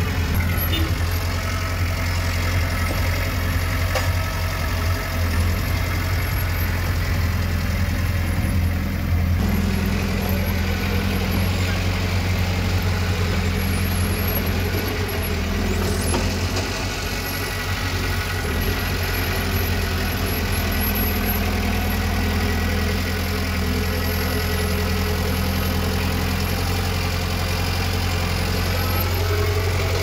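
A heavy construction machine's diesel engine running steadily with a low, even drone.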